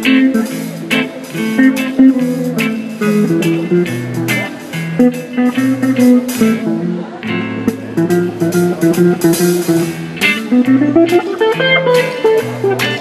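Live band playing instrumental music: an archtop electric guitar over electric bass and a drum kit, with a rising run of notes near the end.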